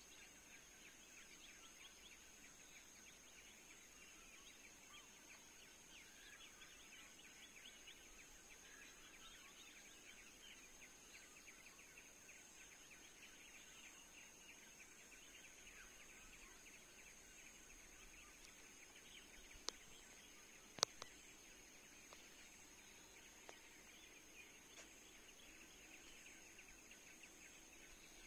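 Near silence: faint forest ambience of insects, a steady high whine with a fast pulsing chirr, broken by two sharp snaps about a second apart a little past the middle.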